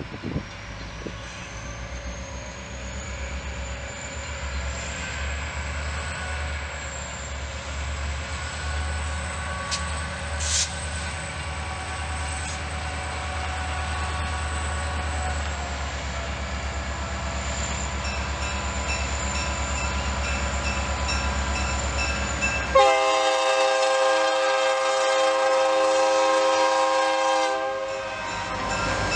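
Diesel locomotive rumbling past at the head of a passenger train, its engine sound building as it comes near, with a high whine above it. About 23 seconds in, a multi-chime train horn sounds one long blast of about four and a half seconds as the passenger cars roll by.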